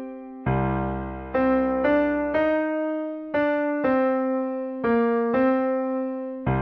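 Solo piano playing a slow single-note melody, one note every half second to a second, each note struck and left to fade. A deep bass note comes in about half a second in and rings under the melody.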